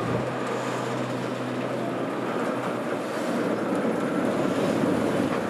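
Diesel shunter running as it moves slowly, hauling a steam locomotive: a steady low engine hum under a broad, even rushing noise.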